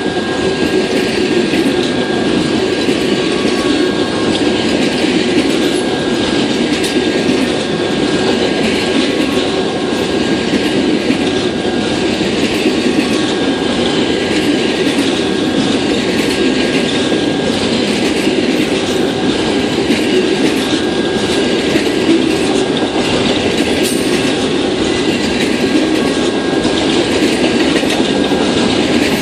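Amtrak Auto Train's enclosed auto-carrier railcars rolling past close by, a loud, steady rumble of steel wheels on rail with faint repeated clicking over rail joints. A thin, steady high whine runs beneath it throughout.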